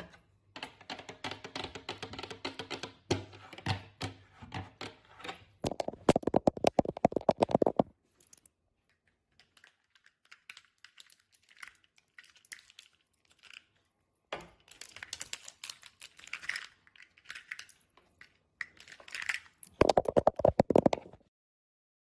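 Long acrylic nails tapping and scratching on carved wood and a gilded ornament, in quick clicking runs with two spells of very fast drumming taps that ring hollowly, and softer scattered scratches between them.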